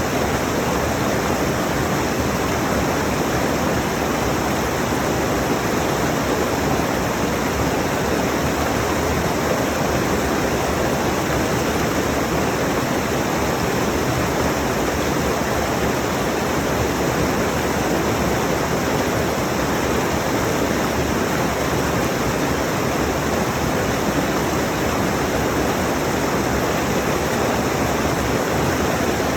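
Rushing mountain stream: water running over rocks in a loud, steady, unbroken rush.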